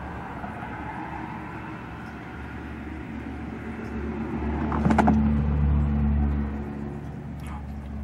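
A motor vehicle passing by: a low engine and road rumble that swells to a peak about five seconds in and then fades away.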